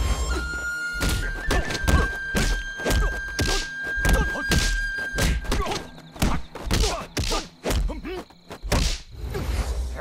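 Fight-scene sound effects: a rapid series of punch and kick thuds, about two a second, thinning out after the middle. They play over a single long held note of the film's music.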